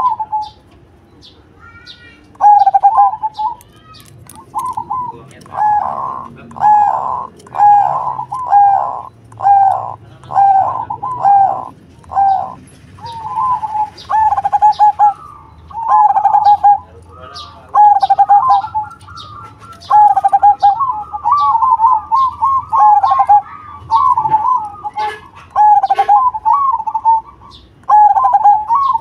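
Zebra dove (perkutut) singing its cooing song: a run of short, evenly spaced coo notes, then a quicker rolling series of notes in the second half.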